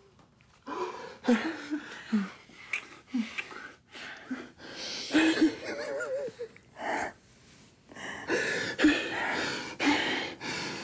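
Emotional crying, tearful with joy: short broken sobs and gasping, shaky breaths, with a wavering whimper about six seconds in.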